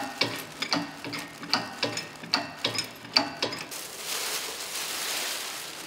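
A run of irregular sharp clicks and knocks for about three and a half seconds, then a steady rustle as a white protective sheet is pulled off a 37-inch telescope mirror in its wooden crate.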